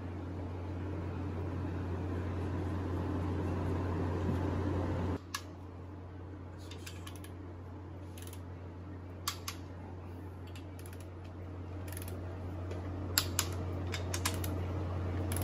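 Steady hum that drops suddenly about five seconds in, followed by scattered light metallic clicks and taps of tools and bolts on the aluminium LS7 block's main caps, the sharpest a quick pair near the end as the torque wrench is handled.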